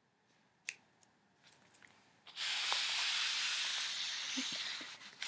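A steady hiss that starts suddenly a little over two seconds in and fades away near the end, after a faint click.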